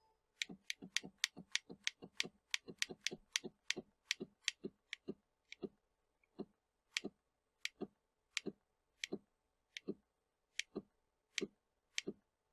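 A run of sharp clicks as the CNC mini mill's X axis is step-jogged toward the edge finder a little at a time. They come about three a second at first, then slow to about one every two-thirds of a second about halfway in.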